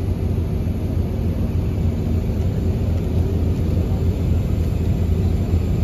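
A crane's engine running steadily, a continuous low rumble with no breaks, as it holds the cross on its cable.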